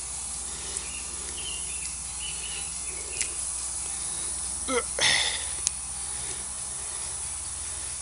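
Faint handling noises of a tar-coated rubber tire plug strip being forced through the eye of a plug insertion needle, with a brief scrape about five seconds in, over a steady low hum and hiss with a few faint chirps.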